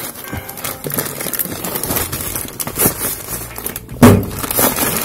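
Thin plastic mailer bag crinkling and rustling as hands pull it open and slide the packaged bedsheet out, with a louder, sudden burst of rustling about four seconds in.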